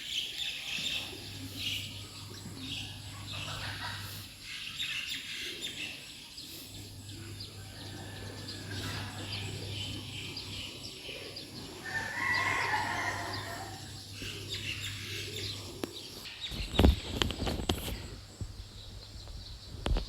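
Chickens clucking and small birds chirping, with a rooster crowing about twelve seconds in. Loud knocks and rustling start near the end.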